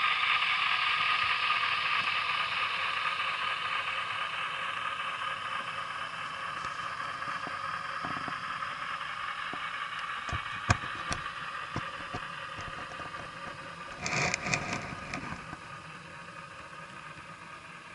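Model train running on the layout, muffled through an action camera's waterproof case: a steady whir of motor and wheels that fades slowly as the train moves away. A few sharp clicks come near the middle, and a short burst of clicking and rattling about fourteen seconds in.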